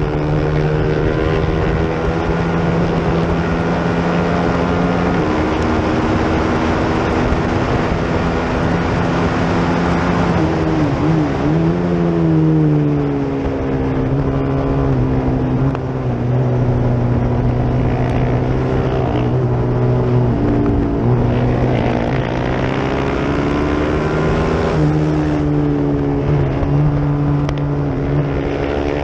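FR450GP race motorcycle's engine running hard at high revs, heard onboard under wind rush. The pitch holds steady between several steps where the gears change, and the revs dip and climb again about halfway through as the bike slows and then accelerates.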